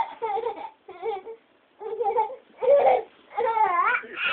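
A small child's high-pitched, wordless vocalising in about six short bursts, whiny and crying-like. Near the end one sound slides down in pitch and back up.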